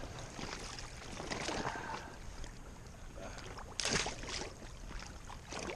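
Outdoor ambience on a small boat on a river: a steady haze of wind and water noise, with a short, louder rush of noise about four seconds in.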